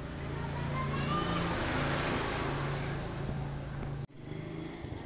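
A motor vehicle's engine passing by: a steady engine hum with a rush of noise that swells and then fades, and a brief rising whine about a second in. The sound cuts off suddenly about four seconds in.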